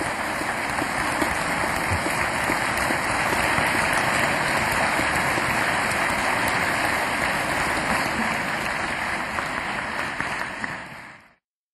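A large audience applauding steadily, a dense mass of clapping that fades out near the end.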